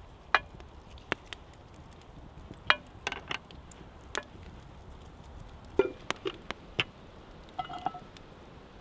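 Scattered sharp clicks and clinks from seasoning a cast-iron Dutch oven of duck stew. Near the end come two metallic clinks with a short ring as the cast-iron lid is set on the pot.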